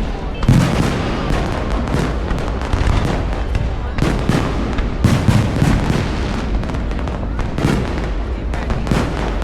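Fireworks bursting in quick succession: sharp bangs every second or so over a continuous low rumble, the loudest about half a second in.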